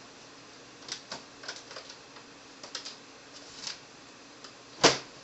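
A small screwdriver driving screws back into an HP Pavilion G61 laptop's screen mounting bracket. It makes a scatter of light, irregular clicks and ticks, with one sharper click near the end.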